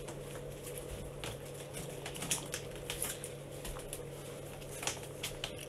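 Scattered small clicks and light knocks, like small objects being handled, over a steady low hum.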